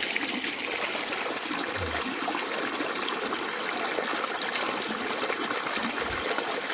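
Clear mountain stream running over rocks, a steady trickle and splash of water pouring through a narrow gap into a shallow pool.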